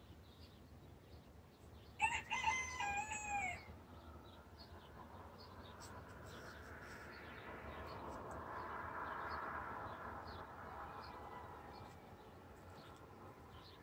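A rooster crows once, about two seconds in: a loud call of about a second and a half that drops in pitch at the end. Afterwards a distant rushing noise swells and fades, with faint small-bird chirps throughout.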